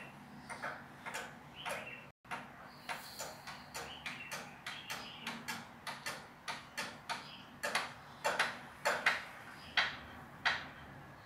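Chalk scratching on cotton fabric along a ruler in short repeated strokes, about two a second, louder in the second half, as the dart lines are marked out on the cut jacket front.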